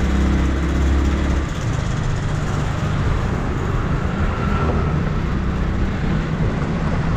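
Motorcycle engine and exhaust running under way over steady road and wind noise. About a second and a half in, the strong low engine note drops back and runs on more quietly at a steady pace.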